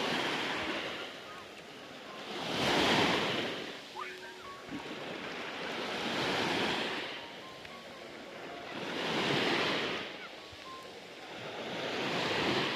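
Sea waves breaking on a beach, each one swelling to a rushing hiss and fading, about every three seconds.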